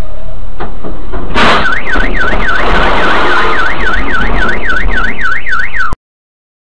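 Road and engine noise, then a loud crash as a truck strikes the car about a second and a half in. A car alarm follows, wailing quickly up and down about four to five times a second over crunching and clattering debris, until the sound cuts off abruptly near the end.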